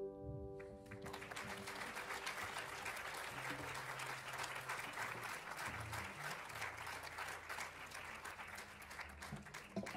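Audience applauding at the end of a song, starting about a second in as the final held chord dies away, and thinning out near the end.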